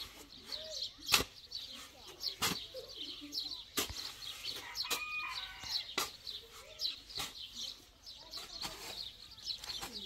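Birds chirping continuously, with sharp knocks roughly every second or so, like hammering or chopping, and faint voices in the background.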